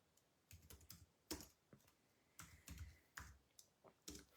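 Faint typing on a computer keyboard: irregular single keystrokes with short gaps between them.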